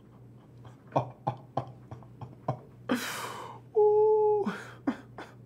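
A man's wordless mouth and voice sounds: a few short smacks and clicks, a breathy exhale about three seconds in, then a held, steady, fairly high vocal note that drops away at its end.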